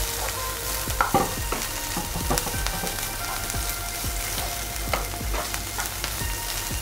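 Moong dal mixture sizzling in a non-stick frying pan while a wooden spatula stirs and scrapes it, with irregular scraping knocks over a steady hiss. The dal is being cooked dry of its remaining water.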